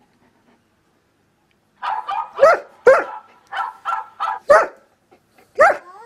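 German Shepherd dog giving a quick run of about nine short barks and yelps, some sliding up in pitch, starting about two seconds in.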